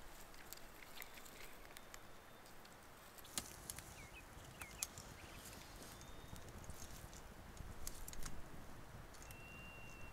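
Small campfire of dry twigs catching and burning, faint, with scattered sharp crackles and pops.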